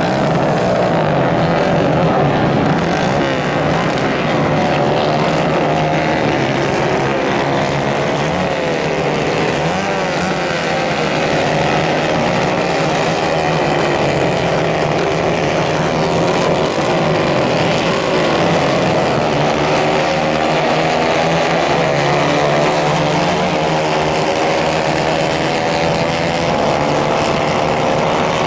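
Several 150 Kayak-class racing kart engines running hard around a dirt track. Their overlapping engine notes rise and fall as the karts accelerate and back off.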